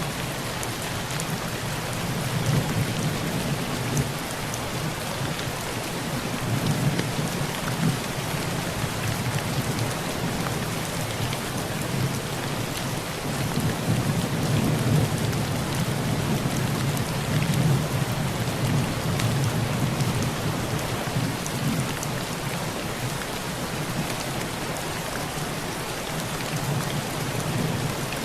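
Heavy rain pattering steadily on a tin roof, with low rolling thunder that swells and fades several times, loudest in the middle stretch.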